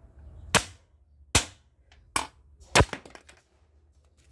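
Four sharp metal blows, about one every 0.7 s, each with a short ring, as a washing machine's drum bearing is knocked out of its metal seat.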